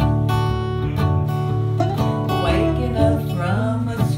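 Acoustic guitar strummed in a steady rhythm, accompanying a live country-style song between sung lines.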